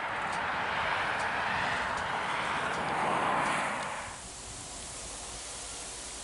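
Distant passing train, a steady rushing noise of wheels on rail that swells slightly and then drops away abruptly about four seconds in, leaving only a faint outdoor hiss.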